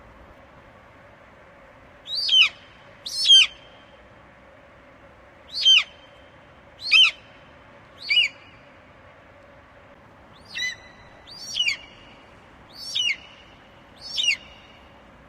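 Eagle calling: nine short, shrill screeches, each falling in pitch, given at irregular intervals of one to two seconds.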